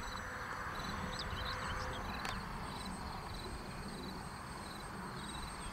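Faint steady rush of the Multiplex Learjet's twin 50 mm electric ducted fans flying far off, over an uneven low rumble of wind on the microphone. Insects chirp in rapid pulses throughout.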